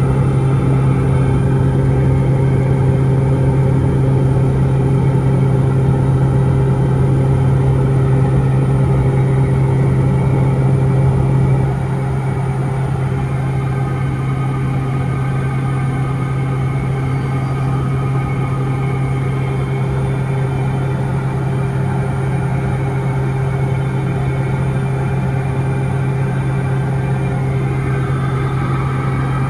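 Steady drone of a Piper Meridian's turboprop engine and propeller heard inside the cockpit in flight, dominated by a strong low hum. The level drops slightly about twelve seconds in.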